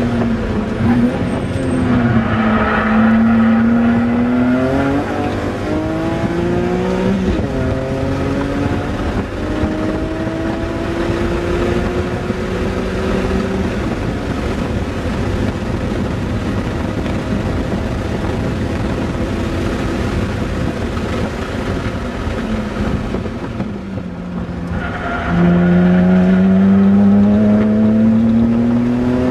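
Car engine heard from inside the cabin during hard driving: it accelerates with a rising note, drops in pitch at upshifts a few seconds in, eases off for about ten seconds, then pulls hard again with its loudest rising note near the end.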